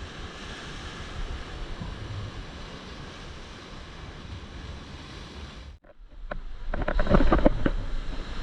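Ocean surf breaking on a beach, a steady wash of noise with wind on the microphone. About six seconds in the sound cuts out briefly, and then louder, irregular crackling and rumbling takes over.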